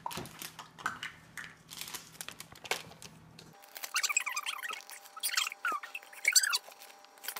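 Light clicks and rustles, then the crinkling of a plastic bag of shredded mozzarella being tipped out into a bowl, in several bursts, over a faint steady hum.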